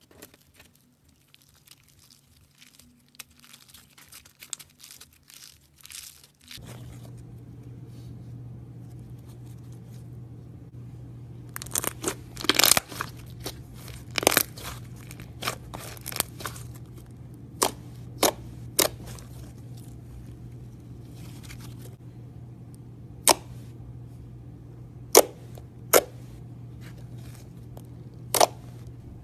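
Slime being squeezed and pressed by hand: soft crackling at first, then a string of sharp pops and clicks as air pockets in the slime burst, over a steady low hum that starts about a fifth of the way in.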